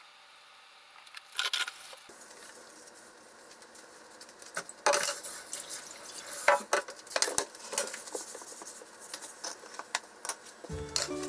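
Dishes and utensils knocking and clinking on a kitchen counter: a couple of knocks early, then a run of sharper clicks and knocks in the second half. Background music comes in near the end.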